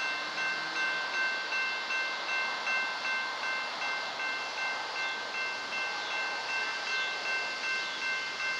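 Railroad crossing warning bell ringing in steady, even strokes, roughly three a second, over the noise of an approaching diesel freight train.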